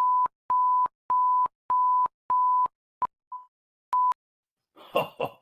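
Electronic beep tone: five evenly spaced steady beeps of one pitch, about one and a half a second. Then a few shorter, broken blips, and a brief burst of noise near the end.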